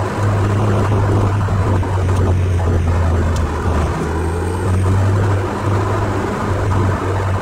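Ferrari 308 GTSi's V8 engine droning steadily under way, heard from inside the cabin with road noise; the low engine note breaks briefly about four seconds in.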